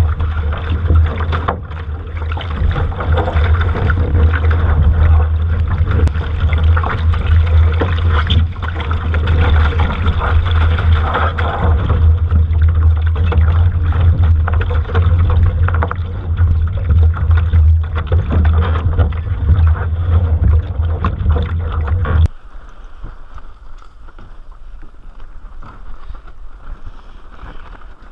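Heavy wind buffeting the microphone over the rush of water around a sailing dinghy under way. About 22 seconds in it cuts suddenly to a much quieter wind hiss.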